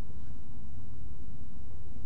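A steady, low rumbling drone with no distinct events, unchanging in level.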